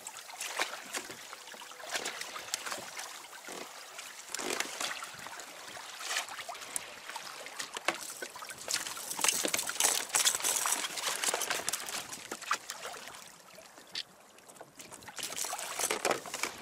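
Water splashing and rushing along the hull of a Hobie Adventure Island sailing kayak under way in a choppy sea, with irregular slaps of small waves. It drops briefly quieter a little after the middle.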